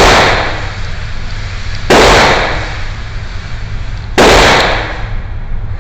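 Three pistol shots from a Raven Arms P-25 .25 ACP pocket pistol, about two seconds apart, each a sharp crack with a short ringing tail. The rebuilt pistol is cycling and firing without jamming.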